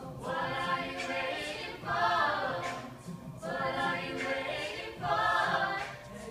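Mixed male and female a cappella group singing together in harmony, with no instruments, swelling louder about two seconds in and again near the end.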